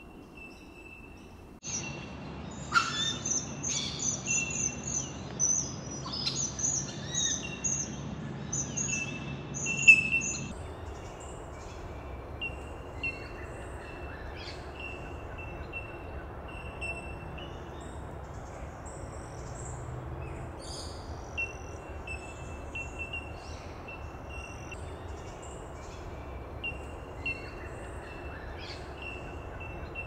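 Wetland birdsong: from about two seconds in, a busy song of high chattering and whistled notes runs for about nine seconds, then only scattered quieter calls remain. Under it all a single high note repeats over and over.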